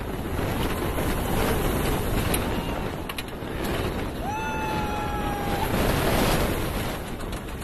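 Single-rail roller coaster train running fast: wind rushing over the microphone and the rumble of the wheels on the track, with a rider's long high scream about halfway through.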